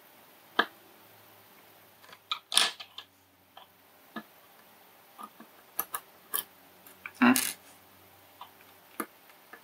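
Scattered small clicks and taps of metal tweezers and a soldering iron tip against a tiny surface-mount chip and circuit board, about a dozen at irregular spacing. The loudest come a little after two seconds in and again around seven seconds in.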